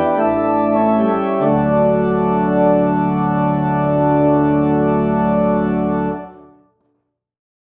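Organ music closing on a long held final chord, which stops about six seconds in and dies away within about half a second.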